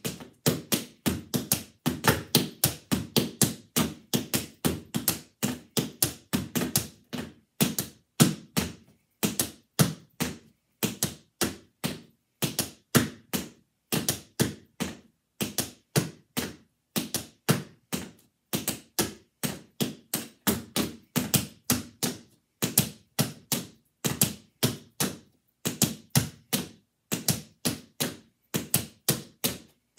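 Tap shoes' metal taps striking a hard mat in quick rhythmic runs of sharp clicks, with brief breaks between phrases.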